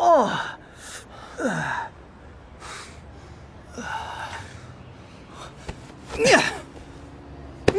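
A man crying out in pain as his nose is squeezed: two short yelps falling in pitch, then gasping breaths, and another louder cry about six seconds in.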